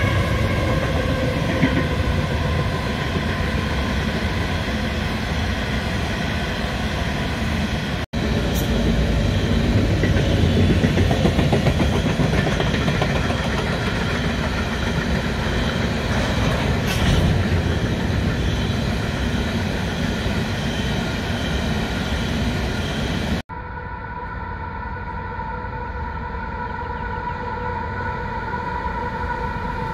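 Freight train of coal hopper wagons rolling past, a steady rumble of wheels on rail with some high ringing tones. After a cut about two-thirds of the way through, diesel locomotives are approaching, a steadier engine drone with a few held tones.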